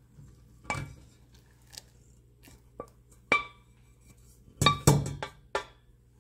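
A kitchen utensil clinking and knocking against a cooking pot as the last of the caramel cream is scraped out, in scattered single ringing clinks with the loudest cluster about five seconds in.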